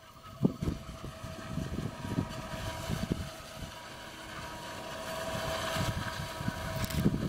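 John Deere 8600i forage harvester chopping maize, with the Fastrac tractor running alongside: a steady machine hum with a held high whine, growing a little louder near the end. Wind buffets the microphone in uneven low rumbles.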